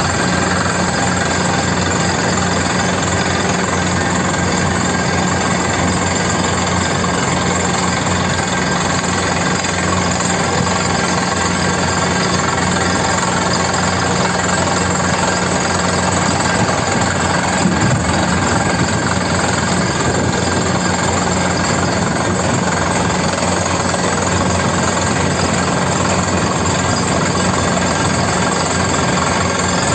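Komatsu hydraulic mining excavator's diesel engine running with a steady, unchanging drone.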